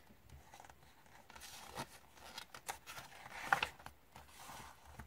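Page of a paper picture book being turned by hand: a faint rustle of the paper with a few soft clicks and taps, loudest about three and a half seconds in.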